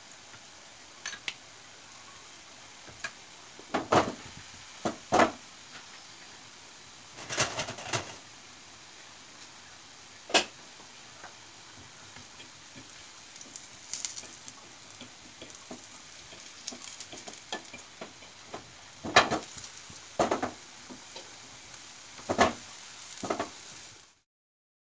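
A metal fork clinks and scrapes against a flat frying pan at irregular moments as banana cutlets are turned over, while they shallow-fry in a little oil with a faint steady sizzle underneath. The sound stops abruptly near the end.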